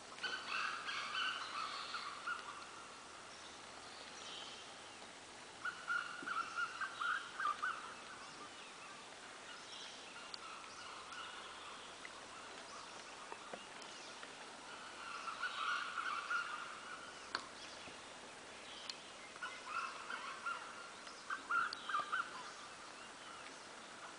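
Junglefowl cackling, in repeated bouts of one to two seconds every few seconds.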